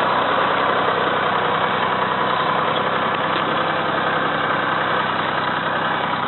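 Tractor engine running steadily, pulling a farm-made garlic digger through the soil.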